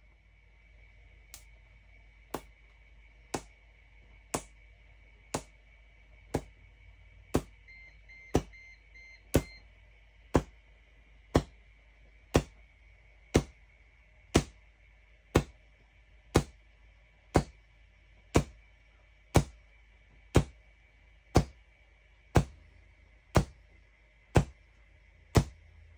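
Solid-state QCW Tesla coil firing one ramped burst about every second, each a sharp electric spark crack, some twenty-five in a row. A faint steady high whine runs underneath.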